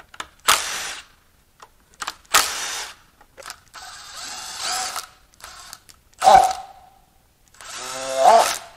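Cordless Milwaukee Fuel impact wrench run in four short bursts on bolts inside the bottom end of a Mazda 2.3L MZR engine, with one sharp metal clank between the last two.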